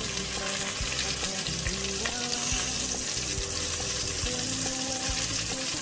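Flour-dusted oxtail pieces searing in hot oil in an enamelled cast-iron pot: a steady sizzle.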